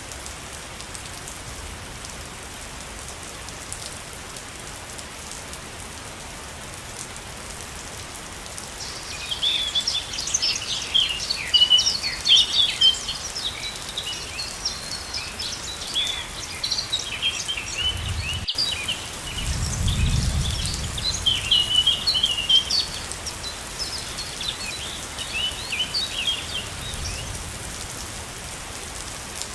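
Steady rushing of a waterfall, with a small bird chirping in quick, busy runs from about a third of the way in until near the end. A brief low rumble sounds about two thirds in.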